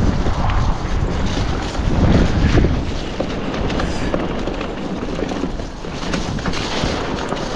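Wind buffeting the microphone over the steady tyre rumble of an electric mountain bike freewheeling downhill on an off-road track.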